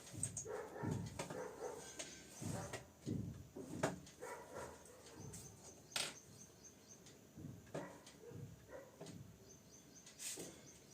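Quiet room with scattered faint clicks and soft knocks, and light chirping in the background.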